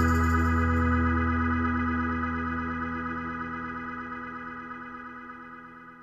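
Background music: a single held chord on a keyboard instrument, fading away steadily from about a second in until it has nearly died out at the end.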